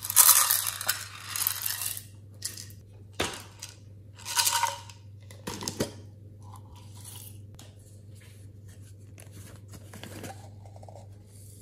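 Plastic slime containers handled and opened by hand: a run of loud crinkling, scraping noises over the first two seconds, a few sharp clicks and short rustles in the middle, then only faint small handling sounds over a faint steady low hum.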